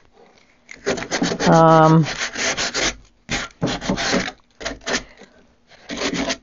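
Sanding sponge rubbed by hand over a wooden cabinet's stained finish: quick back-and-forth rasping strokes in bursts that stop and start, scuffing the surface where a power sander can't reach. A brief low hum falling in pitch sounds about one and a half seconds in.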